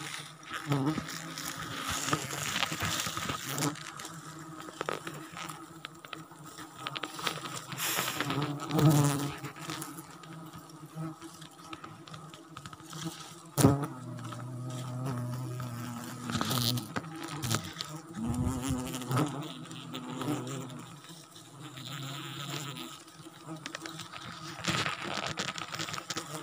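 Wild honeybees buzzing in flight close by, with a wavering drone that comes and goes. One sharp knock sounds about halfway through.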